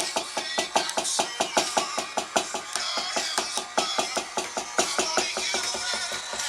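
Drums played through an amplifier in a fast, even run of strokes, about seven hits a second, easing off slightly near the end.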